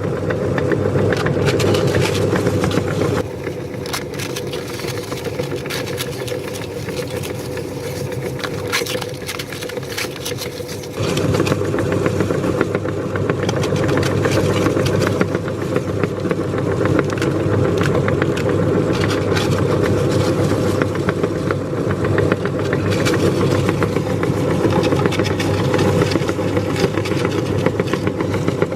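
Electric meat grinder running steadily, with its motor humming and a constant crackle of crisp pani puri shells being crushed. It drops quieter about three seconds in and comes back up to full volume about eleven seconds in.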